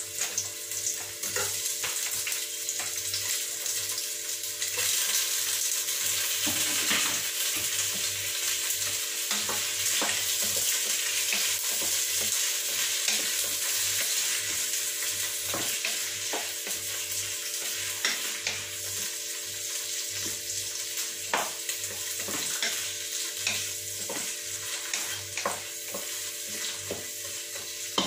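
Prawns frying with garlic and onion in an enamel pot, sizzling steadily as they are stirred with a wooden spatula, with scattered knocks of the spatula against the pot.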